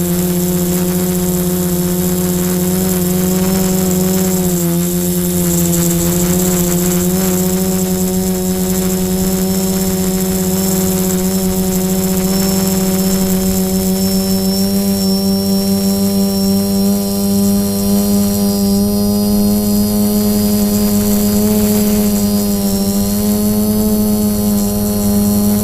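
Quadcopter's electric motors and propellers buzzing steadily in flight. The pitch dips briefly about four seconds in, then climbs slowly toward the end.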